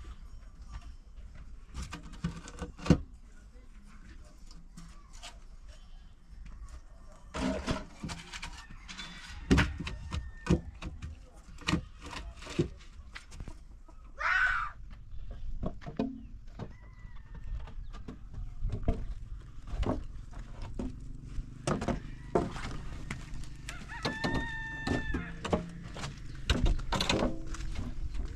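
Chickens calling: a short squawk about halfway through and a longer, drawn-out call near the end, over scattered knocks and clatter.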